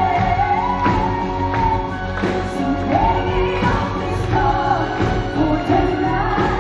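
A female pop vocalist singing a held, gliding melody over a full symphony orchestra, with a steady beat underneath.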